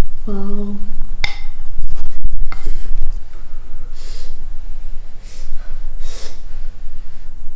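Puffs of breath blowing on a spoonful of hot biryani to cool it, 'phoo phoo', four airy puffs a second or so apart. Before them comes a short hummed 'mm' and a sharp click.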